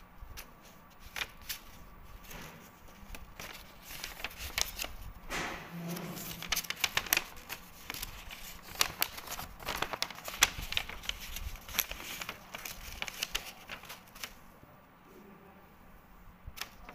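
Paper rustling with irregular light clicks and taps from a hand handling a textbook page, busiest in the middle and dying down near the end.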